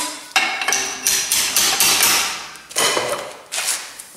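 Steel rod knocking and scraping against the steel rollers and frame of a homemade roller bender: about four sharp metallic clanks, each ringing on briefly.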